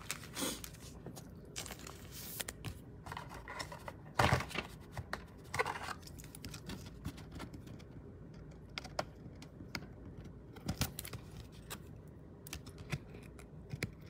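Fingers working at a thin clear plastic card sleeve that is sealed shut: scattered small crinkles, rubs and light taps of plastic, the loudest a sharp rustle about four seconds in.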